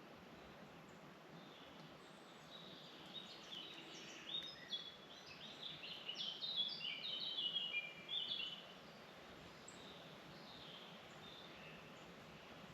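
Songbird singing in a forest: a rapid run of short, high chirping notes starting about two seconds in and stopping about nine seconds in, over faint steady background hiss.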